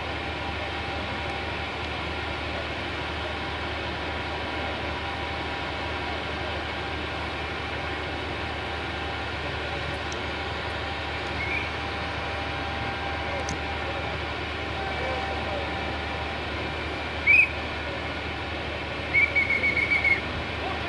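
Heavy railway machinery's engine running steadily, a constant low drone. Near the end, sharp high chirps cut through: one loud single chirp, then a quick run of five or six.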